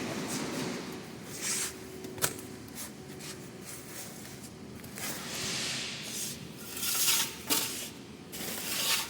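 Handling noises from wiring power cables into a terminal connection: rustling and scraping of the cable, with a sharp click about two seconds in and several louder scrapes near the end.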